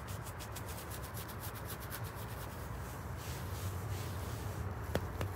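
A hand scratching quickly back and forth over a pot-bellied pig's bristly coat, about seven or eight rasping strokes a second, easing off after about three seconds. Two sharp clicks near the end.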